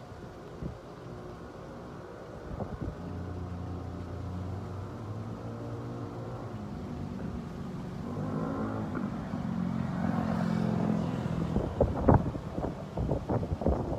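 A motor vehicle engine running, its pitch stepping up and down and growing louder as it comes closer. Near the end, gusts of wind buffet the microphone.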